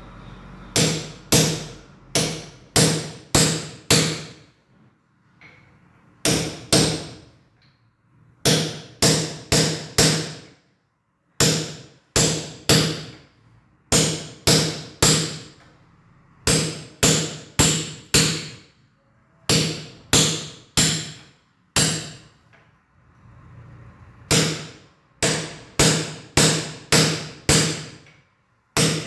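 Hammer blows in quick runs of three to six, about two to three a second, with short pauses between runs; each blow rings briefly.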